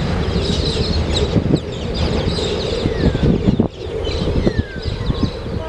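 Low rumble with irregular knocks from a coal train's wagons moving away down the line, with wind on the microphone and birds chirping.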